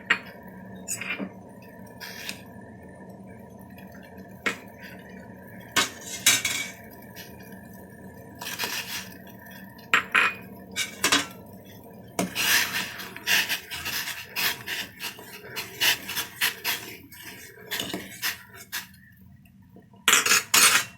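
A metal spoon clinking and scraping against a metal pot as spices are tipped into boiling water and stirred in. The sounds come in irregular knocks and scrapes, sparse at first and busiest in the second half.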